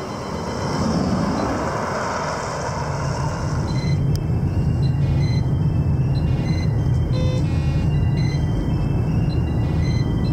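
A velomobile passing fast, its tyres and the air around the shell making a rushing noise that swells and fades. About four seconds in this gives way to a steady low road-and-engine rumble inside a following car.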